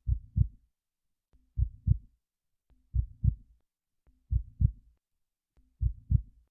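Heartbeat sound effect: five slow double thumps, lub-dub, about one and a half seconds apart.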